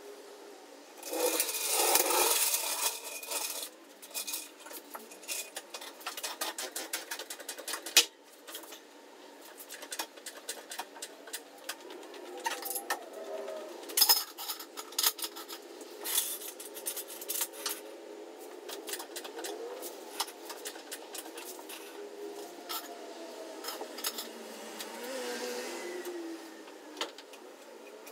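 Metal tools clinking and clicking irregularly, with a louder rattling stretch about a second in.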